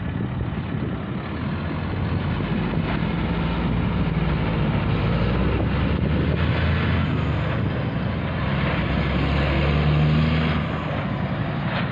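Heavy boom truck's diesel engine running as it drives past and pulls through an intersection, a steady engine drone with road noise. It swells about ten seconds in, then eases off.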